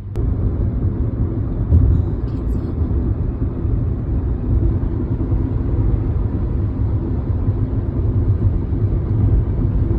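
Steady low rumble of road and engine noise from a car driving along a highway, heard from inside the car.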